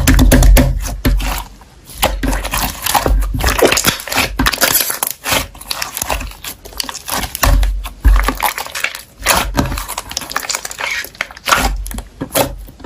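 Slime being squished and pressed by hand: a dense, irregular run of sticky clicks and crackling pops, with a few low thumps.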